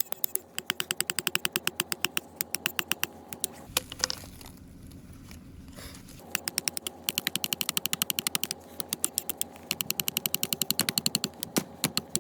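Rapid, even mechanical clicking like a ratchet, about nine clicks a second, in two runs of a few seconds with a pause of about two and a half seconds between them.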